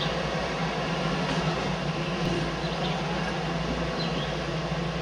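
Jeep engine running steadily at low speed, heard from inside the cab as an even low drone.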